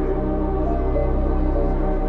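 Dark ambient electronic music: sustained synth tones held over a low, steadily pulsing bass drone.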